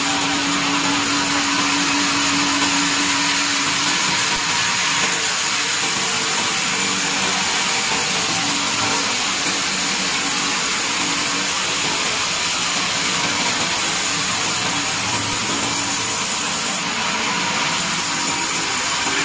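Vertical band sawmill running, its blade ripping a squared timber fed through on the log carriage. It makes a steady, even hiss and whir.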